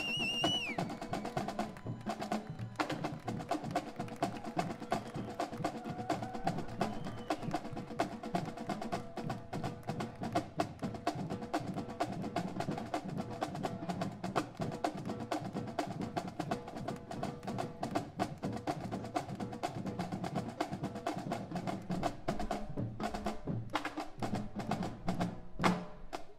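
Marching band drumline playing a cadence: a fast, dense run of snare, rim and block-like clicks over drums. A shrill whistle trails off in the first second.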